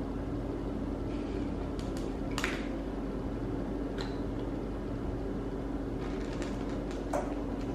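A black Bombay cat eating from a plastic food bowl, giving a few scattered soft clicks and clinks, over a steady mechanical hum.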